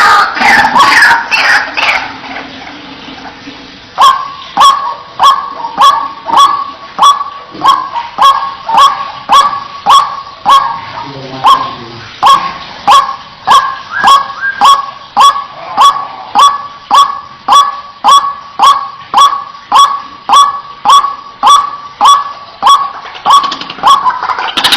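White-breasted waterhen calling: a loud burst of overlapping calls at the start, then from about four seconds in one harsh note repeated evenly, about twice a second.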